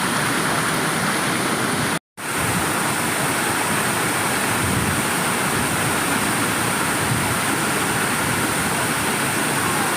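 Waterfall rushing as a steady, unbroken roar of water, cut by a brief silent gap about two seconds in.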